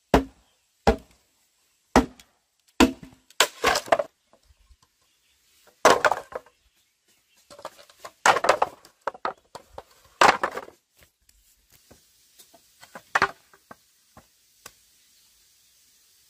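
A blade chopping on wood: sharp single strokes about one a second at first, then quick clusters of chops and knocks, growing sparser and lighter over the last few seconds.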